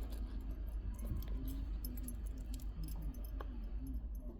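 Cat crunching and chewing crunchy treats: many small crisp clicks and crackles, irregular throughout, over a low rumble.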